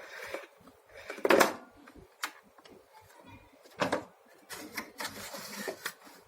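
Plastic housing of a Fresh vacuum cleaner being handled and knocked about as its disassembly begins: scattered clicks and knocks, the loudest about a second and a half in and another near four seconds.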